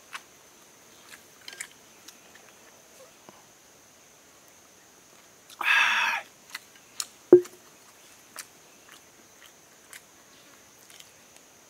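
Quiet eating sounds, small scattered clicks of chewing, broken about six seconds in by a loud half-second vocal exclamation from the eater. A single sharp knock with a brief low ring follows a second later.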